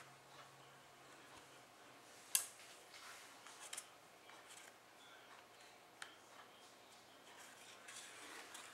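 Faint scratching of a thin stick drawn over the raised numeral on a cardboard board-book page, with a few small clicks, the sharpest about two and a half seconds in.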